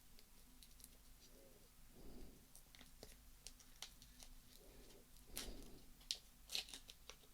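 Faint handling of small objects: scattered light clicks and ticks, with a cluster of sharper clicks about five and a half to six and a half seconds in, and soft breaths.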